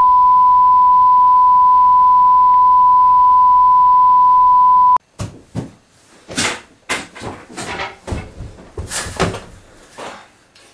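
Steady 1 kHz broadcast test tone, the sound of a 'Please Stand By' test card, held at one pitch for about five seconds and then cut off suddenly. After it, a string of irregular knocks and thumps.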